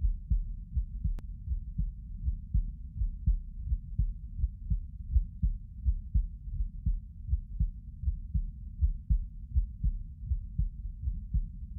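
A human heartbeat heard close up, a steady, even rhythm of deep, muffled beats.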